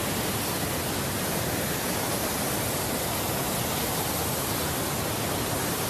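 A huge waterfall rushing: a dense, even noise that holds steady throughout.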